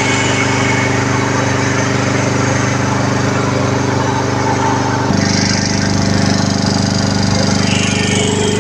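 J. P. Sauer WP151L air-cooled piston air compressor and its electric motor running steadily under load, pumping at about 30 bar, with a fast, even mechanical beat. About five seconds in the low hum grows louder.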